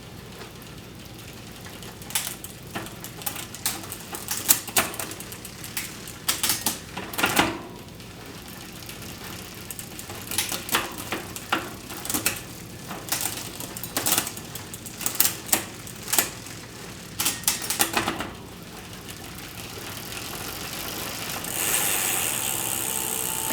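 A string of irregular sharp clicks and taps, some in quick clusters, then a rushing noise that grows louder over the last few seconds.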